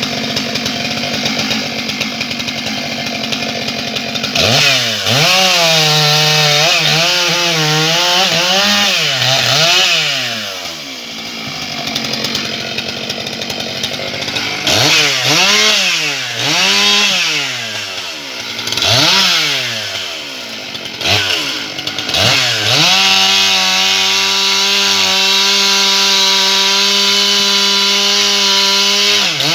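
Stihl MS 661 C-M two-stroke chainsaw sawing small logs: it idles, then is throttled up again and again with its pitch swinging up and down, and near the end is held at a steady high pitch for about six seconds before dropping back.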